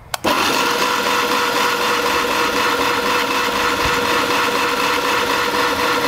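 Electric starter cranking a six-cylinder Johnson Evinrude outboard over without it starting, a steady fast whir that begins about a quarter second in. This is the engine being spun at cranking speed for a spark-gap test of each cylinder.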